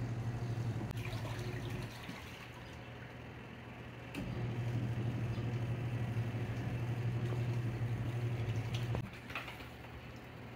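Small portable top-loading washing machine agitating a load of laundry: its motor hums, cuts out about two seconds in, starts again with a click about two seconds later, and cuts out again near the end, with the water churning under it. The on-and-off pulses are the machine's wash-cycle agitation.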